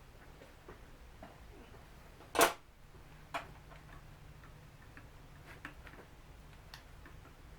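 Small clicks and taps of hand tools and parts being handled during a drone repair. One much louder sharp click-like knock comes about two and a half seconds in, and a smaller one a second later.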